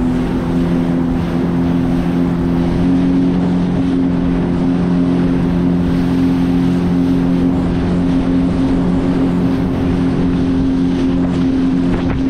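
Jet ski engine running steadily at speed, an even droning hum, with water spray rushing against the hull.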